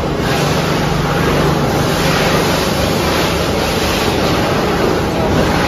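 A machine running steadily, a loud even rush of noise over a low motor hum, which started suddenly just before.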